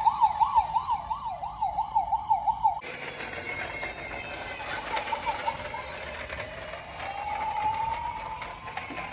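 Fire engine siren warbling rapidly, about four rises and falls a second, that cuts off suddenly about three seconds in. A steady rushing noise follows, with a slower siren wail rising through it near the end.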